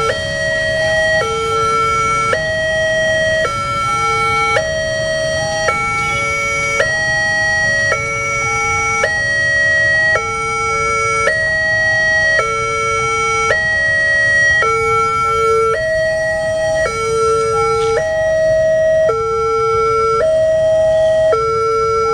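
Indonesian railway level-crossing alarm sounding with the barriers down: two electronic sirens, each switching between two tones about once a second, running out of step with each other. A low rumble of waiting traffic lies underneath.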